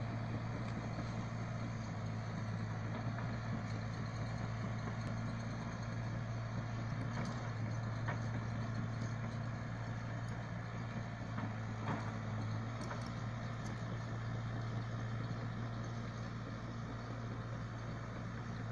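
Diesel engine of a Hyundai excavator running at a steady, even drone, with a few faint clicks in the middle of the stretch.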